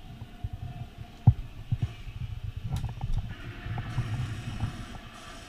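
Irregular dull thumps and knocks over a low rumble, the loudest about a second in, with one sharp click a little under three seconds in.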